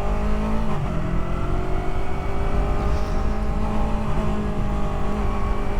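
Yamaha R3's 321 cc parallel-twin engine under way, its pitch dropping about a second in and then rising steadily as the motorcycle accelerates, with wind rumble on the helmet-mounted microphone.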